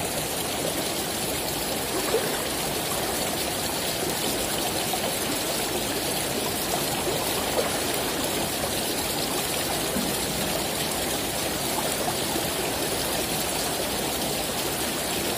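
Small, shallow river flowing steadily, its rippling current making a continuous rushing of water.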